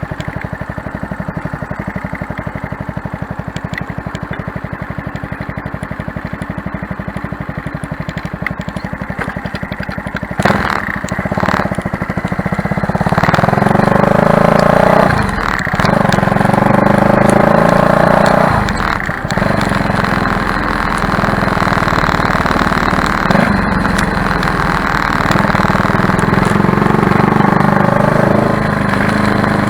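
Motorcycle engine breathing through a cheap aftermarket AliExpress silencer, idling with an even beat, then revving up about ten seconds in and pulling away, its pitch climbing and dropping back several times.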